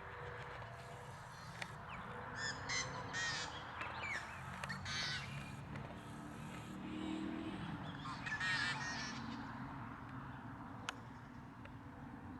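Harsh bird calls in short clusters, about two to three seconds in, again around five seconds and near eight and a half seconds, over a steady low rumble.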